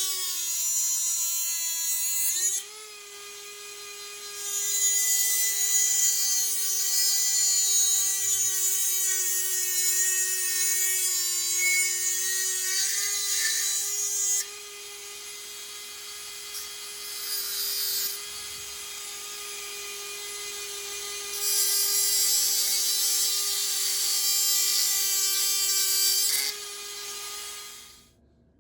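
Dremel 4000 rotary tool running at high speed with a steady whine, grinding the steel of a package opener blade in two long passes that add a harsh hiss. The motor dips and picks up again about two and a half seconds in, and it cuts off near the end.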